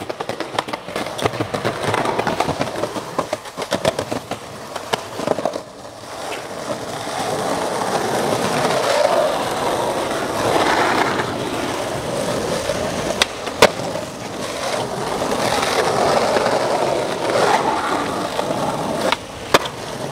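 Skateboard wheels rolling, at first clattering choppily over concrete plaza slabs, then a smoother steady roll on street asphalt. A few sharp board pops and slaps cut through in the second half.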